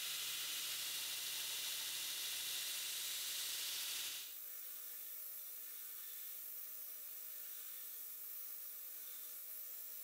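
Belt grinder running with a steel knife blade held against the belt to grind the primary bevels, making a steady grinding hiss. About four seconds in, the sound drops abruptly to a quieter hiss with a steady hum.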